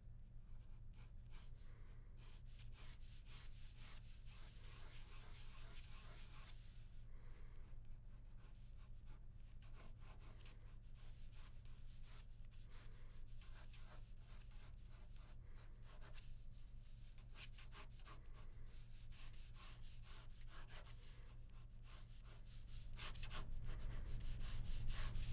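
Ballpoint pen scratching across drawing paper in quick sketching strokes, a faint, continuous run of scratches that grows louder near the end, over a low steady hum.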